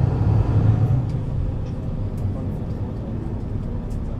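Mercedes-Benz Citaro C2 city bus's diesel engine running under load, heard from on board: it pulls strongly for about a second and a half, then eases to a lower, steady drone.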